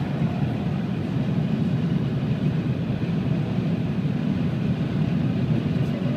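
Steady road noise inside a car cabin at motorway speed: a low, even rumble of tyres and wind with no changes.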